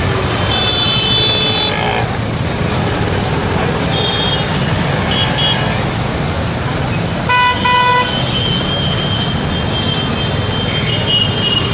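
Water from a tiered street fountain splashing steadily into its basin, under busy road traffic. Vehicle horns honk over it: one horn from about half a second to two seconds in, and a louder double honk about seven and a half seconds in.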